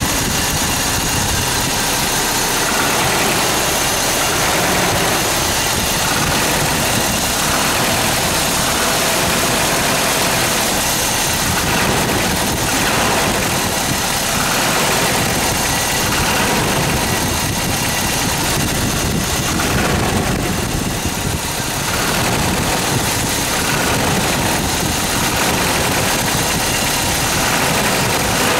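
Toyota 22RE fuel-injected four-cylinder engine idling steadily with a rattle, which the owner asks about as a possible 'death rattle'.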